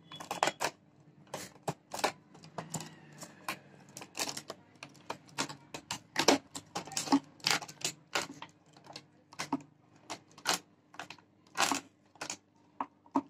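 Scissors snipping through a clear plastic blister pack: a long string of irregular sharp snips, roughly two a second.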